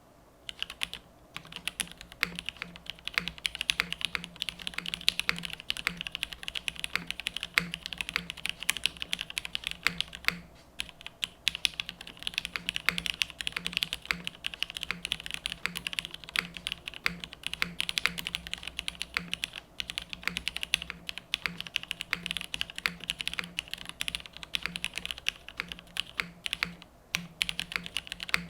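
Mechanical keyboard (KFE OG, top mount, aluminium plate, lubed Cherry MX Vintage Black linear switches, GMK keycaps) typed on steadily: a fast, dense run of clacky keystrokes that starts about a second in, with a couple of brief pauses.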